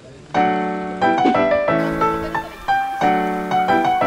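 Background piano music: a keyboard melody of separate struck notes.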